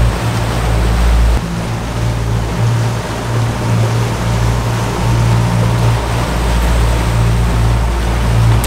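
Twin Mercury Verado 200 four-stroke outboards running at trolling speed, a steady low drone, over the rushing wash of the boat's wake.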